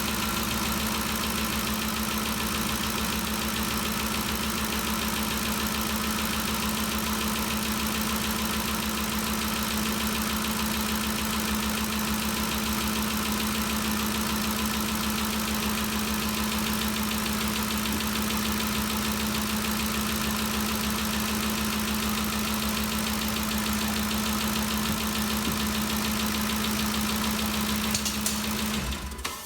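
2013 Ford Expedition's 5.4-litre V8 idling steadily after a valve-train repair meant to cure a ticking noise. It stops abruptly near the end.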